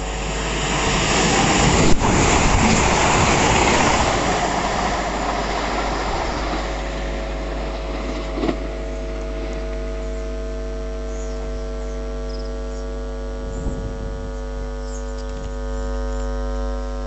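A train passing through a station: a rush of noise swells over the first couple of seconds, holds, then fades away by about seven seconds. A steady hum with several fixed tones carries on underneath throughout.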